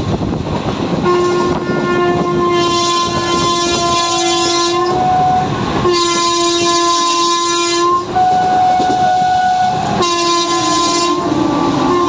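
A WAP-4 electric locomotive's horn sounds in long blasts almost without a break, its pitch changing from blast to blast. Underneath runs the steady rumble of the train at speed.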